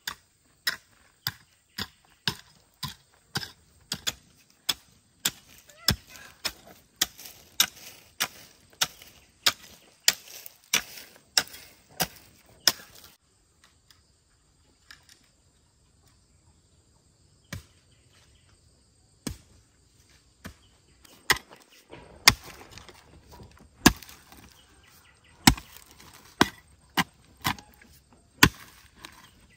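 Repeated sharp chopping strokes, about two a second. They stop after about thirteen seconds, then come back a few seconds later at an uneven pace.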